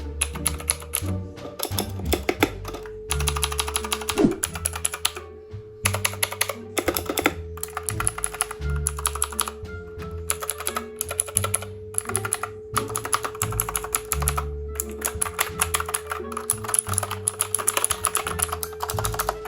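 RAZEAK 60% compact mechanical keyboard with clicky blue switches being typed on in fast runs of key clicks, with a few brief pauses. Background music with a steady bass beat plays underneath.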